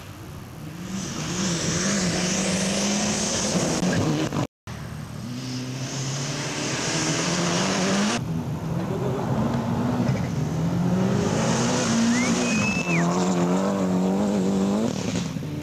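Rally cars at speed on a gravel stage, engines revving hard and falling back repeatedly through gear changes, with a hiss of gravel under the wheels. The engine note breaks off briefly about four and a half seconds in and changes again near eight seconds as one pass gives way to the next.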